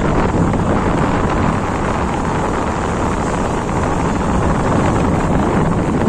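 Steady wind rushing over the microphone of a moving motorcycle, with its engine and road noise running underneath.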